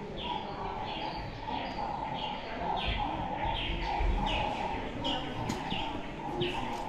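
A bird chirping over and over, each a short falling note, about one and a half a second, over steady low background noise.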